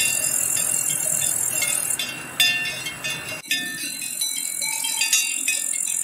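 Several cowbells on grazing cows clanking irregularly, their overlapping metallic tones ringing on after each strike, over a steady high-pitched hiss. A low rumble underneath stops abruptly about halfway through.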